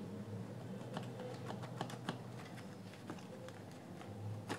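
Faint, scattered light clicks and taps of plastic parts as the inner assembly of a JBL Pulse Bluetooth speaker is handled and worked out of its housing, with one sharper click near the end.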